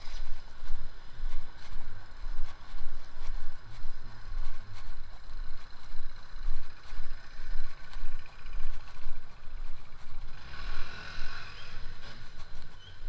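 Low wind and handling rumble on a walking action camera's microphone, pulsing about once a second, over faint city street traffic. The traffic noise grows louder for a moment near the end.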